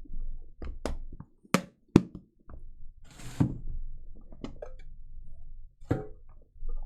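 Handling and opening a sports-card box and its packaging on a table: a series of sharp clicks and knocks, two loud snaps about one and a half and two seconds in, a short rustle of packaging partway through, and another knock near the end.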